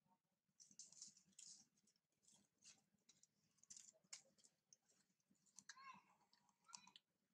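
Near silence with faint scattered clicks and rustles, and a faint short squeak about six seconds in.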